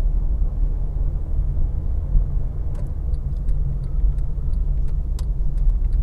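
A car driving: a steady low rumble of engine and road noise, with light clicks and rattles from about three seconds in.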